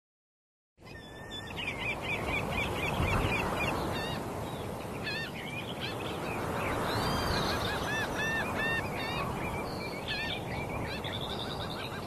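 Birds chirping in quick, repeated short calls over a steady outdoor rushing noise that swells gently now and then, starting after a moment of silence.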